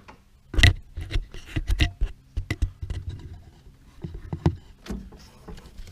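Irregular handling noises in a small workshop: knocks, clicks and scrapes, loudest about half a second in and again around four and a half seconds.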